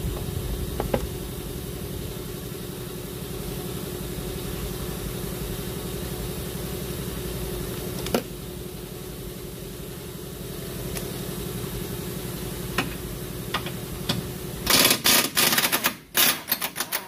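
Pneumatic impact wrench with a 19 mm socket rattling on the lower control arm bolt in several loud bursts near the end, breaking it loose. Before that, a steady low machine hum with a fast even pulse and a few single clicks.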